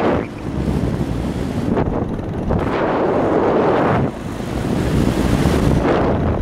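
Wind buffeting the microphone in loud surges every second or two, over a steady low rumble.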